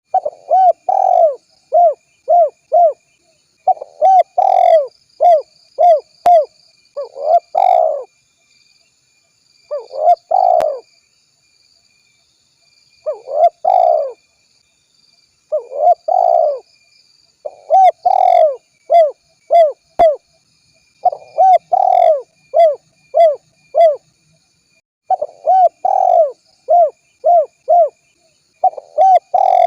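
Spotted dove cooing over and over in phrases of several short, low, rounded coos, each phrase separated by a pause of a second or so. Faint steady high tones sit underneath.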